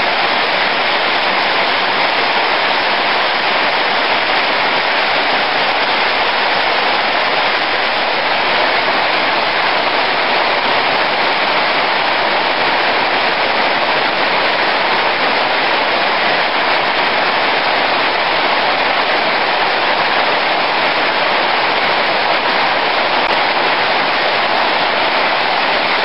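Heavy rain pouring down: a loud, dense, even hiss that holds steady without a break.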